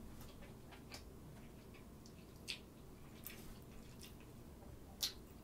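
Faint eating sounds close to the mic: soft, irregular clicks of chewing and a metal fork working food on a plate. Two sharper clinks come about halfway through and near the end.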